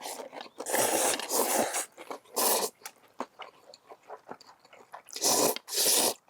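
Buckwheat noodles slurped in loud sucking bursts: a long one about a second in, a short one a little later, and two close together near the end. Small chewing clicks sound between them.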